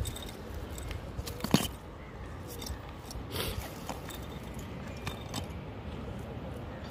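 Small scattered clicks and scrapes of a fish being handled and freed from a nylon gill net on gritty stone ground, with one sharper knock about one and a half seconds in, over steady low background noise.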